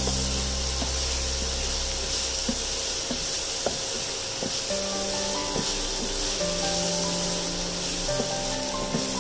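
Chopped shallots sizzling steadily as they fry in oil in a nonstick frying pan, stirred with a spatula that scrapes and taps the pan a few times. Background music with long held notes plays along.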